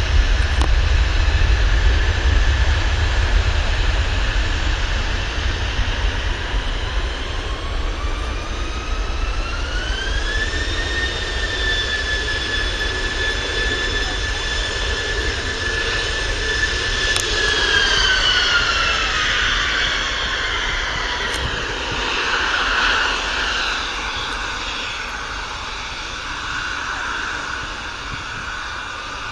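Ryanair Boeing 737's jet engines on the takeoff roll: a deep rumble with a whine that climbs in pitch about eight seconds in, holds steady, then falls away around eighteen seconds as the airliner accelerates down the runway. The sound fades gradually near the end.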